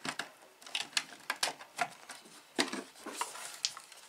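Plastic cabinet of a Fisher-Price PXL 2000 TV being pressed shut and handled: a string of irregular clicks and knocks as the case halves snap together.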